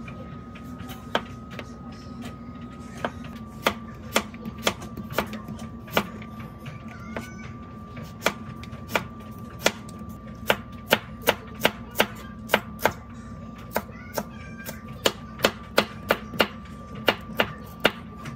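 Kitchen knife chopping on a cutting board: a run of sharp, uneven strokes, at times about two a second.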